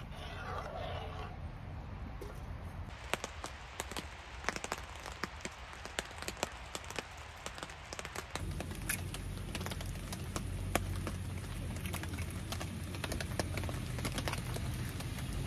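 Rain falling in a forest, with raindrops hitting an awning in irregular sharp ticks. A low steady hum joins the ticks about halfway through.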